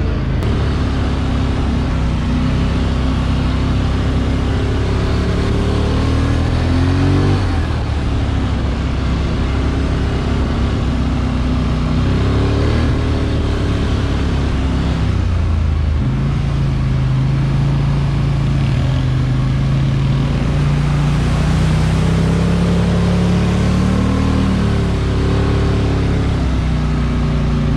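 Polaris Sportsman Highlifter ATV engine running under way, its pitch rising and falling several times as the throttle changes.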